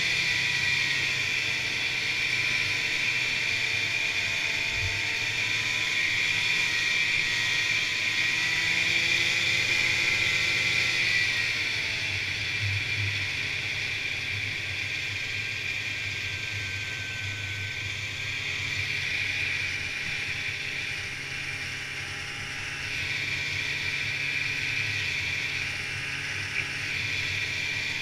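Polaris Indy snowmobile running steadily at trail speed, its engine note easing a little past the middle and dipping again near the end.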